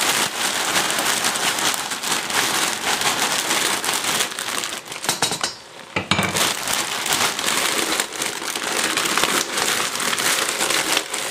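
Stir-fry sizzling and crackling in a hot pot, with dry pancit canton noodles rustling as they are tossed with tongs into the meat and vegetables. The sound drops away briefly about halfway through, then resumes.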